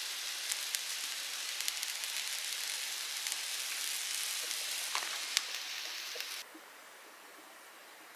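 Steady sizzling hiss with scattered crackles and pops, typical of food frying in a pan. It cuts off sharply about six and a half seconds in, leaving a faint steady hiss.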